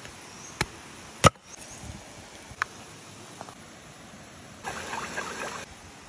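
Cooking utensils clicking and knocking against cookware, four sharp clicks with the loudest about a second in, then about a second of scraping noise near the end.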